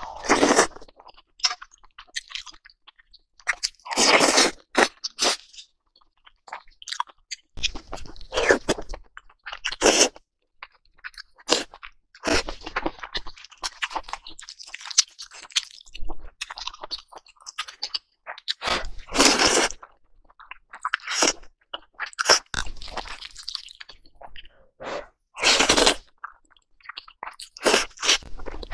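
Close-miked eating: chewing and slurping of noodles and soup, in irregular loud bursts with quieter stretches between.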